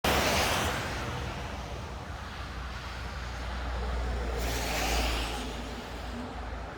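Road traffic: a car passes by with a low rumble and tyre noise, swelling to its loudest about five seconds in and then fading.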